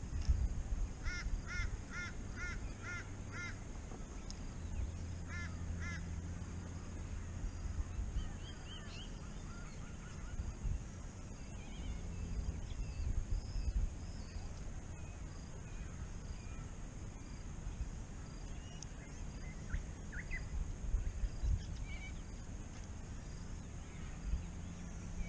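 A bird calling outdoors: a quick run of about six repeated calls about a second in, two more a few seconds later, then fainter scattered chirps over a steady low rumble and a constant high hiss.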